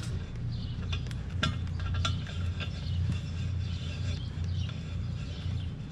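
Metal clinks and taps as the sliding T-handle of a clamp-on pallet fork's steel clamp screw is worked and turned, with sharp clicks about one, one and a half and two seconds in, over a low steady rumble.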